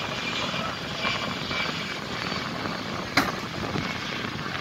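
Heavy machinery engine running steadily, the mobile crane lifting the aircraft fuselage section, with wind buffeting the microphone. A single sharp click about three seconds in.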